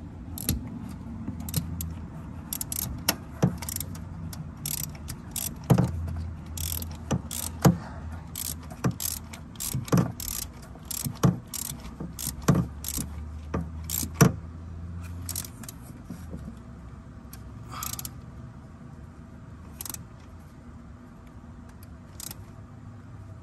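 A 3/8-inch ratchet socket wrench on an extension clicking in short, irregular strokes as it tightens a spark plug. The clicks come thickly at first and more sparsely in the last several seconds.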